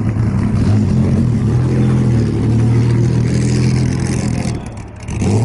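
A vintage car's engine running at a steady low speed close by, its level dipping briefly near the end.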